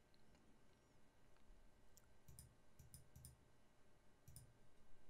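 Faint computer mouse clicks in a near-silent room: a quick cluster of clicks from about two seconds in, and a pair a little after four seconds.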